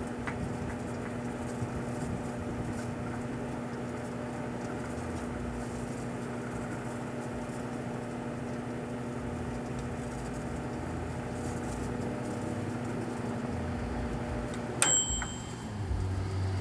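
Proctor-Silex microwave oven running with a steady hum while heating a bottle of shampoo. Near the end it stops with a sharp click and a brief high ring, the end of the cooking cycle.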